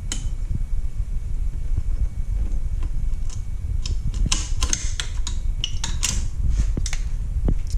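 Light clicks and scrapes of a throttle-to-oil-pump control cable being worked and pulled up through a PW50 minibike's frame, coming thick from about three seconds in, over a steady low rumble.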